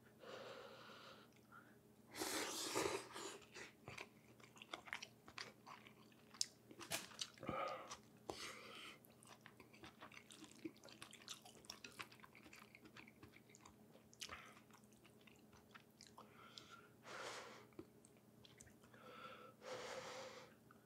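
Close-up chewing of a mouthful of pho: soft, wet mouth clicks throughout, with a few louder bursts of noise now and then.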